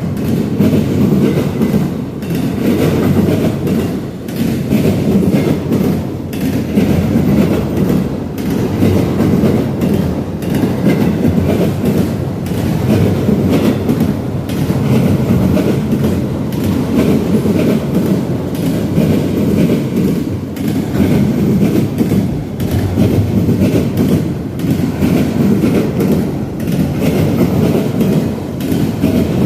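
Freight cars of a passing train rolling by on the rails: a steady loud rumble broken by a repeated clickety-clack of wheels over rail joints.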